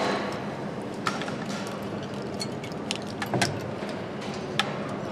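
Assembly-line ambience: a steady machinery hum with scattered sharp clicks and clacks of parts being handled, a small cluster of them a little past three seconds in.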